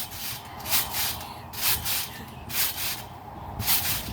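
Trampoline being bounced on: the mat and springs give a rough, rubbing whoosh with each bounce, about once a second.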